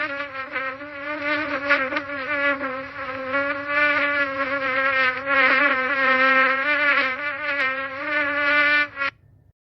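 Housefly buzzing in flight, a continuous wing hum that wavers slightly in pitch and swells and fades in loudness as it moves about. It cuts off abruptly near the end.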